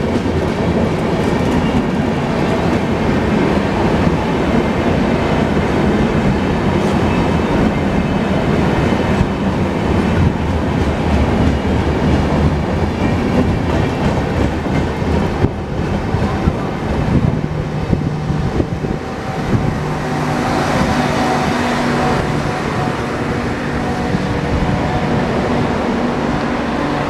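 Express-train passenger coaches rolling past at speed, their wheels clacking over the rail joints. Near the end the last coach goes by and the clatter gives way to a steadier hum and hiss as the train draws away.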